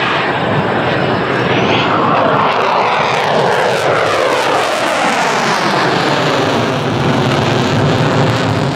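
Boeing EA-18G Growler's twin General Electric F414 turbofans in a loud fly-by, the jet noise sweeping down in pitch in the middle as the aircraft passes and draws away.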